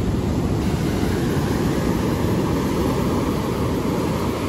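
Wind buffeting the microphone over breaking ocean surf: a steady, loud low rumble.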